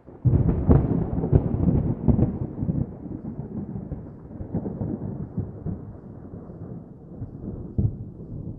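Thunder rumbling: it starts suddenly with a few loud cracks in the first two seconds, then rolls on more quietly, with one more crack near the end.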